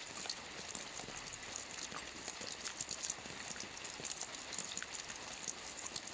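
Steady rain falling, with a constant hiss and many separate drops clicking sharply on a surface.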